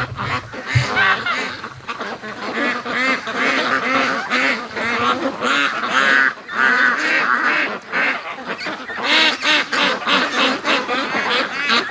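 A flock of domestic ducks quacking loudly and continuously, many birds calling over one another.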